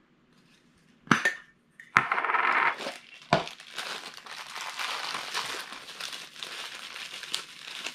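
A Funko Soda tin can being opened: sharp metallic clicks and a clatter as the lid comes off in the first few seconds, then steady crinkling of the thin black plastic bag as the vinyl figure is unwrapped.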